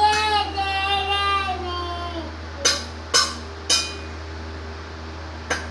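A small child's high, drawn-out vocalizing for about two seconds. Then three sharp knocks about half a second apart, and one more near the end.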